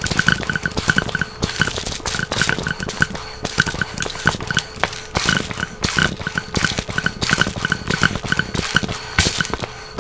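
Homemade airsoft gun built on a balloon air pump, pumped rapidly back and forth to fire: a fast, uneven run of air puffs and clicks, several a second.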